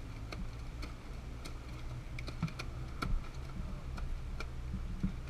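Irregular light clicks and ticks, a few a second and unevenly spaced, over the low steady hum of an idling boat engine.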